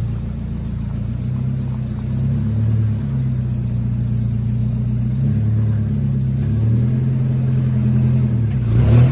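Nissan Hardbody D21 pickup's engine running at low revs under light throttle as the truck creeps forward, its pitch rising and falling a little, with a short louder blip near the end.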